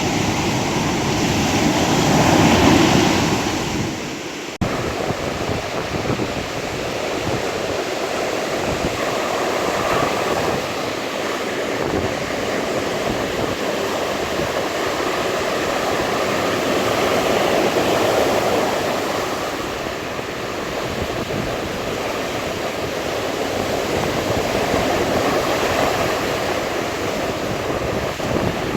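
Sea waves washing in: a continuous rush of surf that swells and eases every several seconds, with one louder wave near the start. About four and a half seconds in, the sound dips briefly and then comes straight back.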